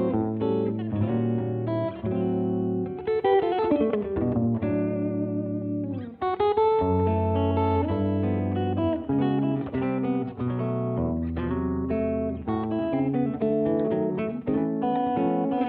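Instrumental guitar music: a picked melody with string bends and vibrato over chords and a steady low bass line.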